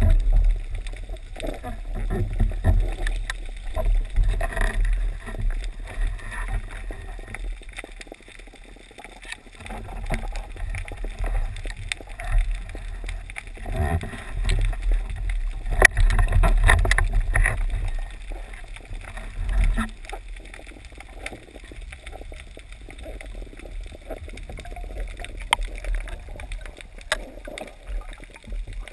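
Muffled underwater noise heard through a sealed camera housing: a low rumble of moving water with scattered clicks and knocks from the housing and the speargun as the diver swims and handles gear.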